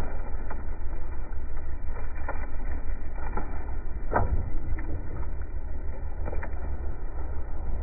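Loose soil and rocks pouring down in a miniature landslide, a steady low rumble with separate thuds of clumps landing, the heaviest about four seconds in.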